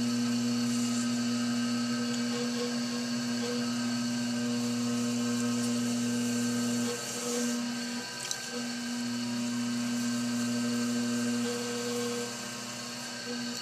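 Electric potter's wheel motor humming steadily as it spins. The hum dips briefly about seven seconds in and drops a little lower near the end.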